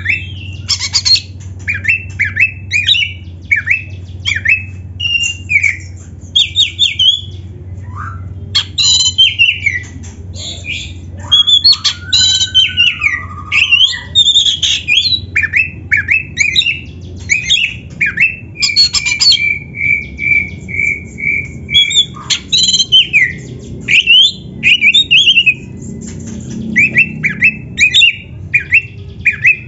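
Oriental magpie-robin (kacer) singing loudly in full voice, a varied string of whistled phrases, sharp chirps and harsh notes, with a run of evenly repeated notes about two-thirds of the way through. A low steady hum lies underneath.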